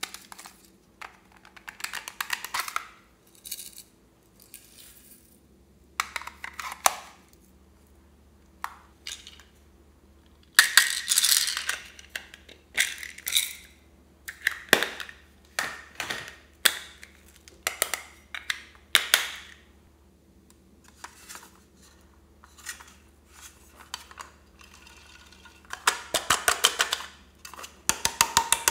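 Small plastic containers being opened and handled, with plastic beads and sprinkles rattling and clinking as they pour into a glass bowl. The sound comes in separate short bursts of clicks and rattles, with a fast run of ticking clicks near the end.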